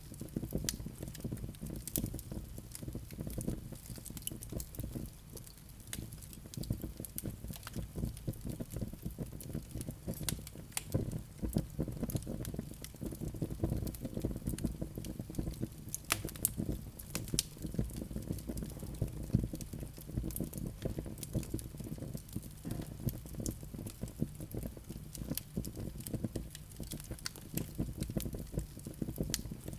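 Fireplace fire of flaming live coals crackling: a constant run of small crackles with an occasional sharper pop, over a low rumble.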